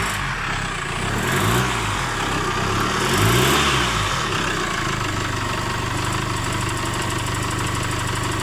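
2016 Chevrolet Trailblazer engine blipped twice, rising and falling in pitch, then settling to a steady idle, run to listen for a knocking, ticking noise that the mechanic calls 'tikit, tikit'.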